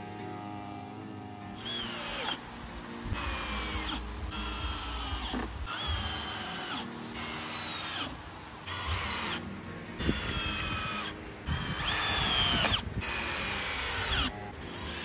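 Cordless drill driving screws into a wooden fence post to mount electric-fence insulators: about ten short runs of motor whine, each dropping in pitch at its end, with short pauses between.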